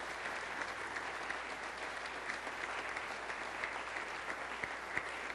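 Church congregation applauding: many hands clapping densely and steadily in welcome.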